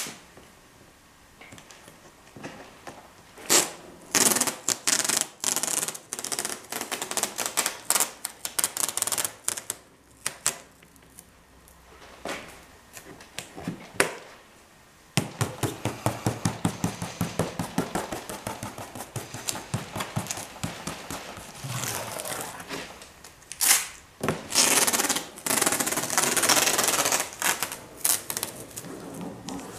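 Masking tape being pulled off the roll and pressed down around a taped-out circle on a fibreglass body panel, in several bursts of rapid crackling ticks.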